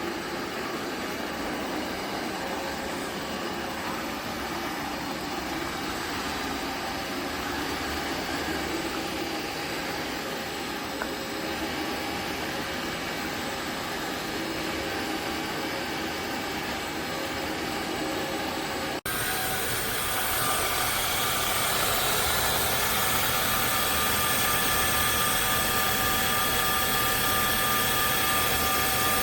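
Tineco Floor ONE S7 PRO cordless wet-dry vacuum running steadily, its motor giving a steady whine over rushing air noise. It drops out abruptly for a moment about two-thirds of the way through, then runs on louder with a stronger whine.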